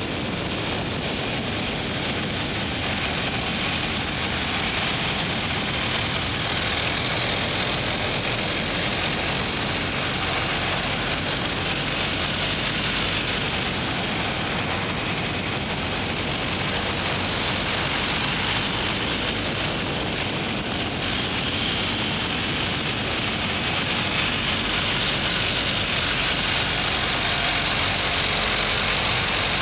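Steady rush of wind and road noise from a BMW R1250 GS Adventure motorcycle ridden at road speed, with its boxer-twin engine running underneath.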